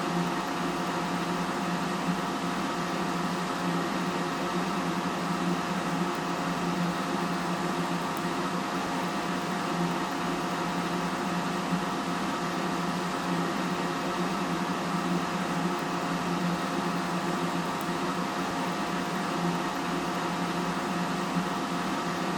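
A small electric motor running at one steady speed, a constant hum with a whine above it, switched on just before and off just after.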